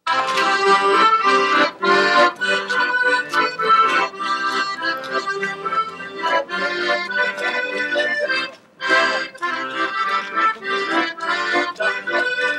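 Accordion playing a traditional folk dance tune, stopping briefly about two thirds of the way through before starting again.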